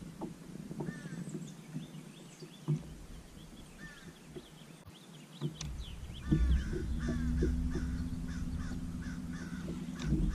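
A crow cawing over and over in short runs of arched calls. From about six seconds in, a low rumble and a steady low hum join and are louder than the calls.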